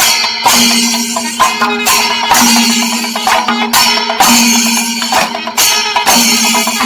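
Kerala chenda melam: chenda drums and ilathalam hand cymbals playing loudly together in a driving rhythm, the cymbal clash and a drum phrase repeating roughly every two seconds.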